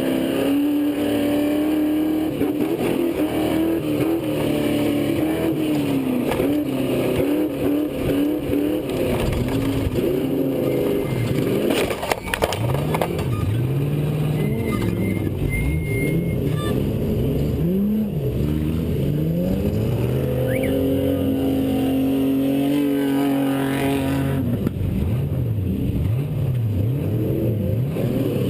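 V8 off-road race truck engine heard on board under race load. Its revs rise and fall again and again, then hold steady for a few seconds before dropping near the end. A short clatter cuts in about twelve seconds in.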